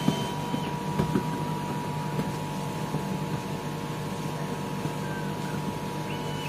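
Steady hum of workshop machinery holding a few constant tones, with a few light knocks in the first second or so.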